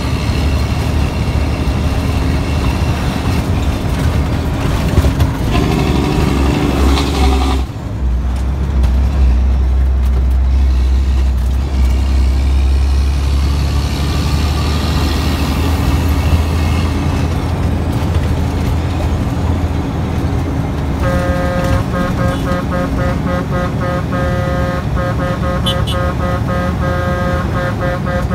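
Detroit 12.7 diesel engine of a cabover dump truck running under way, a steady low drone with a brief dip about eight seconds in. Near the end a steady chord of higher tones with a rapid flutter joins it.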